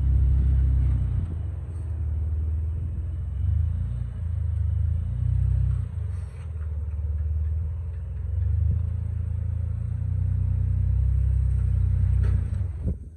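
Jeep Wrangler's engine at low revs as it crawls over granite rock, a deep steady rumble that rises and falls a little and cuts off shortly before the end.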